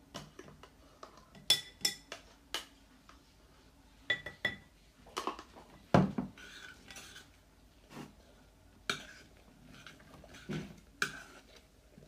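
A spoon clinking and knocking against a bowl at an irregular pace while stirring a thick slime mixture, some of the clinks ringing briefly.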